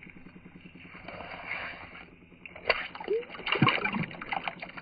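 Water splashing and sloshing at an ice-fishing hole, with scattered sharp clicks and knocks. It is quiet at first and gets busier after about two and a half seconds.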